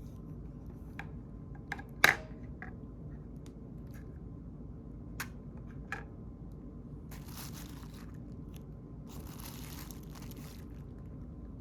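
Hands taking apart a smartphone: small clicks and snaps from its parts, the sharpest about two seconds in, then two stretches of rustling and scraping around the middle and toward the end.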